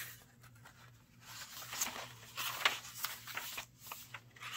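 Paper pages of a handmade junk journal rustling and flicking as they are turned by hand, in a run of rustles starting about a second in and lasting a couple of seconds.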